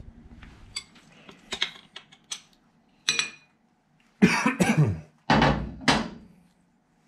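Metal-on-metal clicks and clanks of hand tools and steel drawbar parts on a Fadal CNC spindle being worked loose. There are a few light clicks first, then a sharp ringing clink about three seconds in and two louder clanks around four and a half and five and a half seconds.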